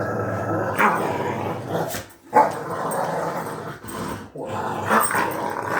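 Dog growling continuously, with sharp barks about one second in, about two and a half seconds in and near the end.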